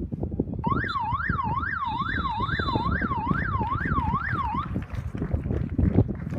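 Electronic end-of-half siren, a warbling tone sweeping up and down about twice a second for roughly four seconds, signalling that the countdown has run out and the first half is over. A brief high whistle sounds in the middle of it, over wind noise on the microphone.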